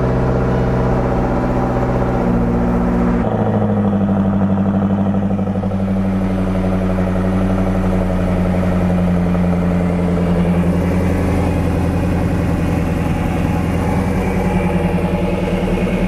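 1999 Lotus Esprit's twin-turbo V8 (Type 918) idling just after a start; its idle note changes about three seconds in, then holds steady. It is misfiring, running on six cylinders with no spark on two.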